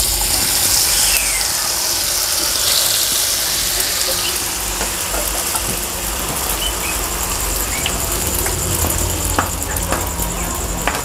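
Egg-and-flour batter hitting hot oil in a wok and frying: a loud sizzle at first that settles into a steady frying hiss, with scattered small pops and crackles.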